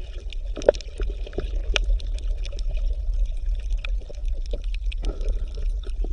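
Water bubbling and trickling, a haze of small splashy clicks over a steady low hum.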